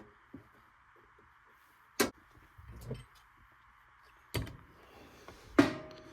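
A run of sharp knocks and clatters from metal parts or tools being handled. The loudest comes about two-thirds of the way through: a metallic clank that rings briefly as it dies away.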